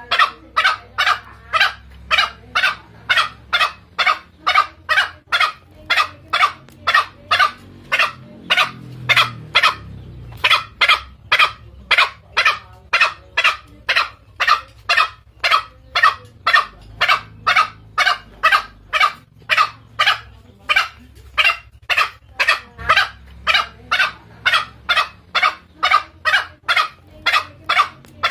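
Green junglefowl calls: short, sharp notes repeated steadily about twice a second, with a brief pause around ten seconds in. This is a lure call for drawing in male junglefowl.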